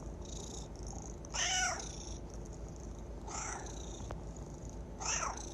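A domestic cat meowing three times in short calls, the first and loudest about a second and a half in, and the others roughly two and three and a half seconds later.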